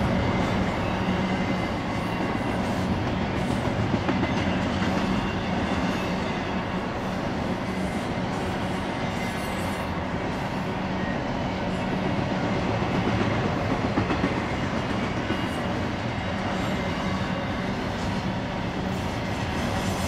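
Double-stack intermodal well cars of a BNSF freight train rolling past: a steady rumble of steel wheels on rail, with occasional clicks.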